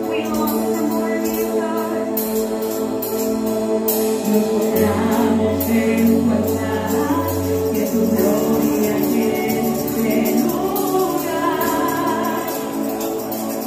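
Christian worship music: a group of voices singing over sustained instruments, with tambourine keeping a steady beat.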